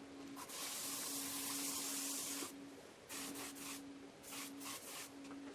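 Hissing noise: one long burst of about two seconds, then several short bursts, over a faint steady hum.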